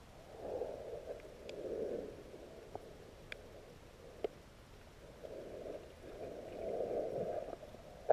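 Muffled water noise picked up by an underwater camera, swelling and fading in slow surges, with a few faint sharp clicks.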